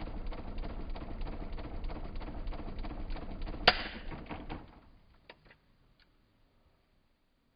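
Mondial Super Power 30 cm six-blade electric fan blowing, its air buffeting the microphone with a steady rushing noise. A sharp click comes over halfway through, and the air noise then dies away within about a second, as when the fan is switched off. A few faint ticks follow.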